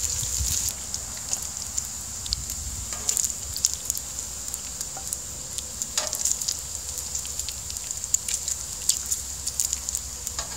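Bacon frying on a hot flat-top steel griddle: a steady sizzle of rendering fat, broken by many small irregular pops and crackles as the grease spatters.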